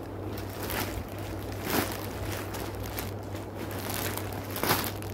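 Clear plastic packaging rustling and crinkling as it is pulled about by hand, in several separate swishes, over a steady low hum.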